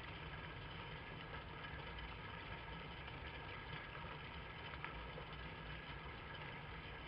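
Steady low hum with a hiss, with one faint click about five seconds in.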